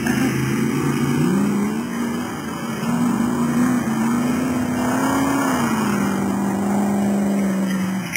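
Engine of a Land Rover comp safari racer, driven hard, its note rising and falling with the throttle. The pitch climbs about five seconds in, then drops back and holds at a steady drone near the end.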